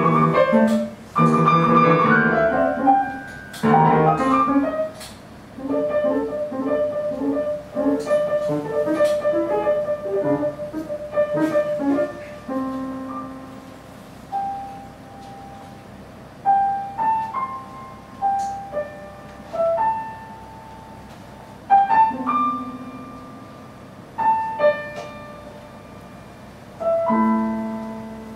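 Grand piano improvising: loud, dense chords at first, then a quick repeated figure, thinning after about twelve seconds to sparse single notes and short chords left to ring out.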